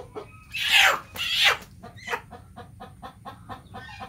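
Chicken squawking loudly twice in the first second and a half, followed by a run of quick, softer clucks, about four or five a second.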